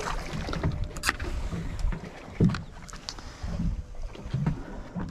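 Boat noise on a fishing boat: a steady low rumble with scattered irregular knocks and clatter.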